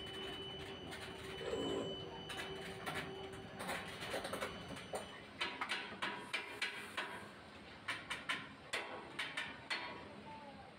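Irregular sharp clicks and knocks, coming thicker in the second half, over a faint steady hum that fades out a few seconds in.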